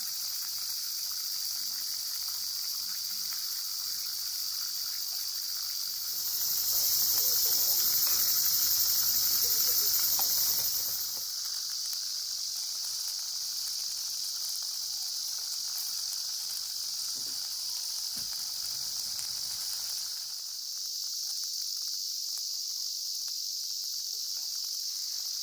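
Chorus of insects shrilling steadily, with a stretch of about five seconds near the start of the second quarter where it swells louder.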